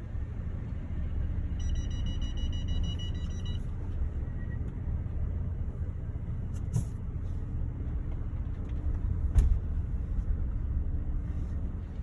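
Mercedes GLC running with a steady low road rumble. About one and a half seconds in, a high-pitched brake squeal sounds for about two seconds. Two short clicks come later.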